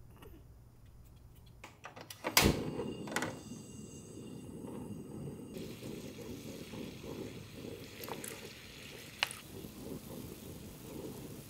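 A few clicks and a sharp knock about two seconds in, then the steady bubbling of broth simmering in a pot on a portable gas stove, with a sharp metal clink of tongs against the pot twice near the end.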